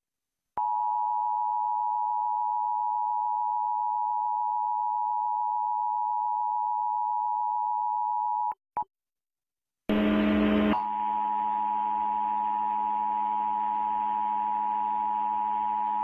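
Emergency Alert System attention signal for a Required Monthly Test: the steady two-tone alert, two close pitches sounding together, holds for about eight seconds and cuts off. After a short gap and a brief burst of noise it sounds again over a low hum.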